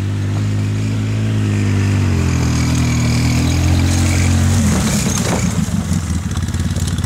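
Polaris Big Boss ATV engine running as the quad drives up, its steady note turning rougher and choppier about four and a half seconds in.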